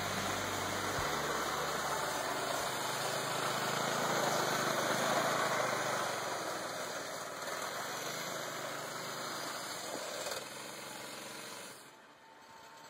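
Snowmobile engine running as the sled ploughs through deep snow. It grows louder to a peak about five seconds in, then fades, dropping off near the end.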